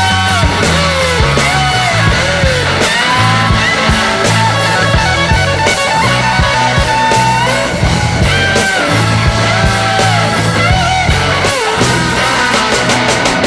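Rock music with gliding guitar lines over a steady, repeating bass line, played loud.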